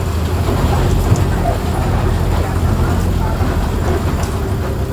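Front-mounted diesel engine of a Mercedes-Benz OF 1418 bus running steadily with road noise: a deep, even drone with no sharp events.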